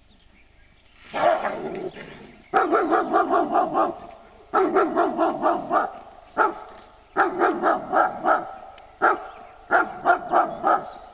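German Shepherd barking in rapid volleys of several barks each, starting about a second in and coming again every second or so, directed at a black overall hung up as a mock figure.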